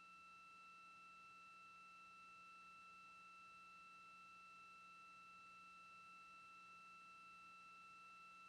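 Near silence on a live broadcast feed: a faint, steady high-pitched electronic whine with a low hum beneath it, unchanging throughout.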